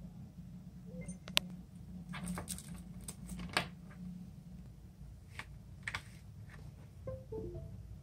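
Scattered light clicks and taps from hands handling gear at a desk, a few of them sharper, over a low steady hum.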